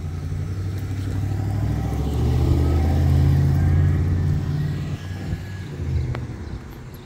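A car drives past on the street; its engine and tyre sound builds to a peak about three seconds in, then fades away.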